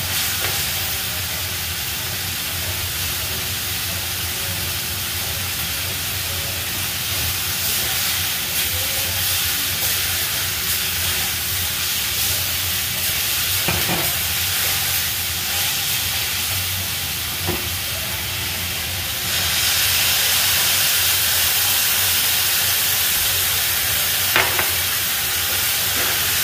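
Vegetables sizzling as they stir-fry in a frying pan, stirred with a spatula that now and then taps the pan. The sizzle grows louder about two-thirds of the way through.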